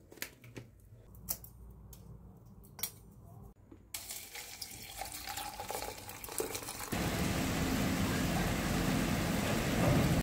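A few light clicks and knocks, then water running from a tap into a sink. The flow starts about four seconds in and gets louder and steadier about three seconds later.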